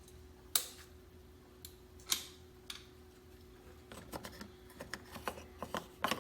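Light clicks and taps of plastic door-panel trim being worked loose by hand: two sharper clicks in the first couple of seconds, then a run of small quick clicks near the end, over a faint steady hum.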